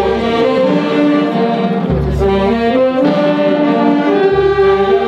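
Brass band playing a slow march in held, changing chords, with a deep low beat roughly every two and a half seconds.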